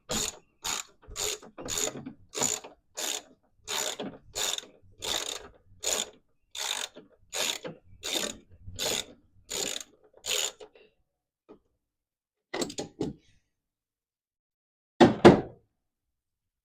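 Socket ratchet wrench clicking in quick back-and-forth strokes, about two a second, as it backs out a loosened master cylinder mounting bolt. The ratcheting stops about ten seconds in, followed by a few light clinks and then a louder double clunk near the end.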